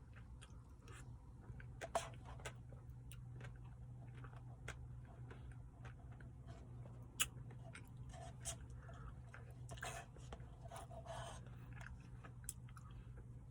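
A person eating a chocolate brownie Blizzard, with faint chewing and small scattered mouth clicks; two sharper clicks, about two seconds and seven seconds in, are the loudest. A steady low hum runs underneath.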